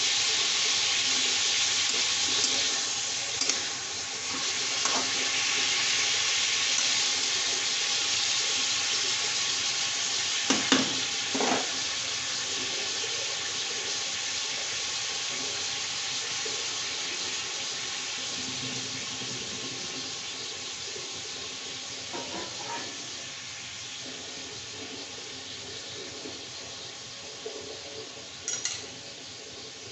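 Chicken pieces sizzling in oil in a kadai, a steady hiss that slowly fades, with a few clinks and scrapes of a spatula against the pan, two of them close together about eleven seconds in.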